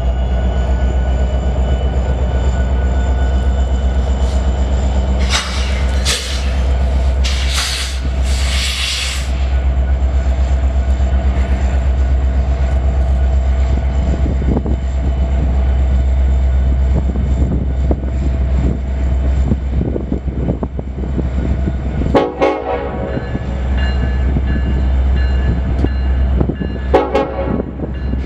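BNSF diesel freight locomotives running past with a double-stack container train, a steady low engine drone. Horn blasts sound about five and eight seconds in, with shorter ones about 22 seconds in and near the end.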